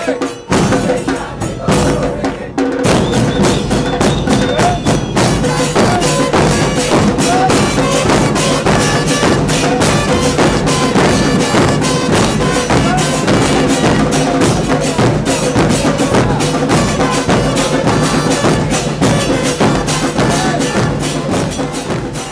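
Football supporters' murga band playing, with a fast, steady beat of drums and percussion driving the music. The band fills out about two and a half seconds in.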